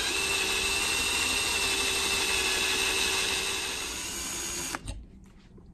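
Power drill spinning a 5/32" cobalt bit into the steel of a rifle barrel through a dimpling jig's guide hole, cutting a set-screw dimple with the bit oiled; a steady whine that stops abruptly near the end.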